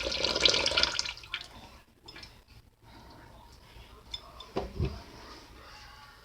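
Water being poured into a bowl of rinsed sticky rice, stopping about a second in, followed by faint drips and small clicks and a low thump near the end.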